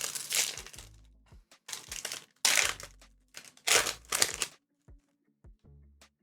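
Foil booster pack wrapper crinkling in four bursts as a trading card pack is handled and opened, over soft background music.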